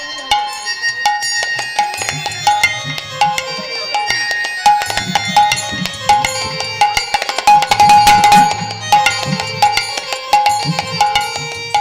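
Instrumental kirtan music: a sustained melody line over hand-drum strokes and frequent sharp percussive strikes, with the playing densest and loudest about two-thirds of the way in.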